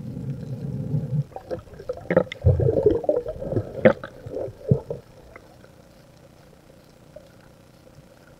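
Underwater gurgling and bubbling, with a low rumble at first and irregular pops and gurgles, dying down to a faint background about five seconds in.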